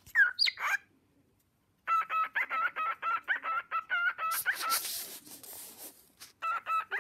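A pet bird calling: a couple of quick calls at the start, then a fast run of short, repeated chirps, about four a second, broken by a brief noisy rush in the middle and taken up again near the end.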